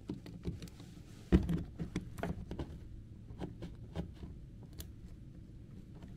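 Irregular light clicks and knocks of a loose wall plug socket being wiggled in its mounting, loose because one of its fixing screws is missing. The loudest knock comes about a second and a half in.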